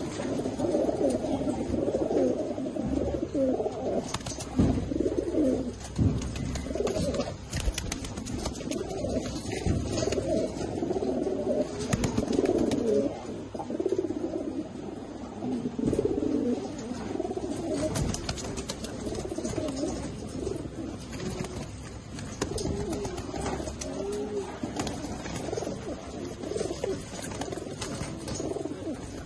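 Several Mookee pigeons cooing together, their low coos overlapping without pause, with a few brief sharp clicks among them.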